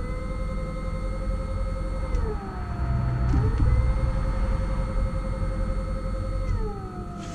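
Nissan Leaf EM57 permanent-magnet drive motor, driven by its inverter with an open-source logic board and spinning with nothing on its output shaft. Its whine rises to a steady pitch, winds down about two seconds in, then spins up again and holds before winding down near the end. A steady high tone and a low rumble sit under it.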